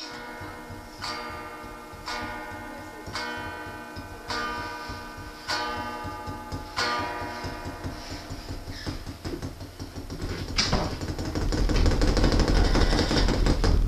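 Electric guitar played through a small practice amp, chords strummed about once a second and left to ring, with drumsticks tapping along. In the last few seconds the tapping grows faster and louder into a clatter.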